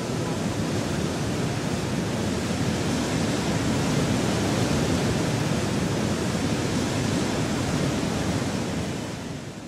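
River rapids rushing steadily, fading down near the end.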